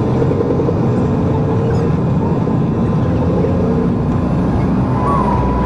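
Airliner cabin noise: the steady rumble and rush of the aircraft's engines and airflow. A thin steady tone joins in near the end.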